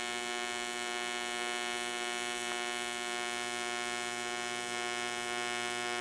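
AC TIG welding arc on aluminum, a steady electric buzz that holds even while the bead is laid.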